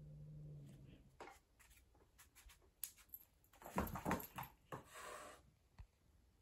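Two cats play-fighting on a hard floor. A short low growl comes first, then light clicks and scuffs of paws and bodies, with a denser burst of scuffling about halfway through.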